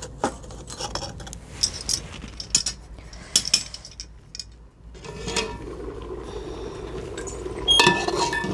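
Metal fire tongs click and knock against the burning firewood in a wood-fired clay stove, a series of sharp clinks. About halfway a steady hiss from the steaming pot comes in, and near the end a metal ladle and lid clink against the pot.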